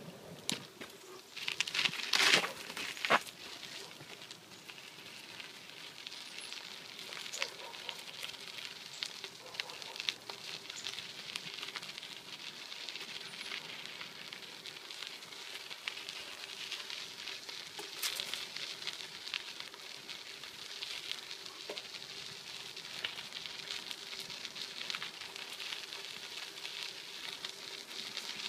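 Bicycle tyres rolling over a dirt and gravel trail: a steady crackling crunch with scattered clicks. There is a louder burst of clatter about two seconds in.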